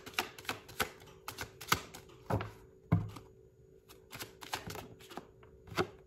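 A deck of oracle cards being shuffled by hand: a run of sharp, irregular card clicks and slaps at several a second, easing off a little after three seconds in, then starting again.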